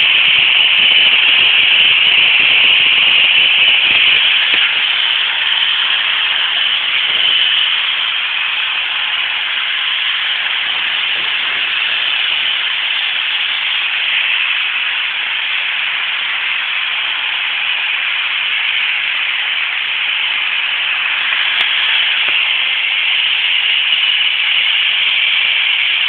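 Two Roomba robot vacuums running: a steady hiss from their vacuum motors and brushes, slightly quieter from about five seconds in.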